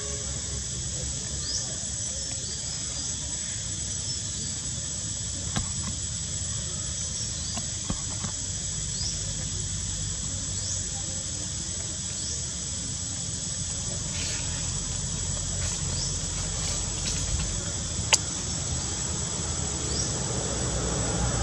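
A steady high-pitched insect drone over a low rumble, with short rising chirps every second or two and a few sharp clicks, the sharpest near the end.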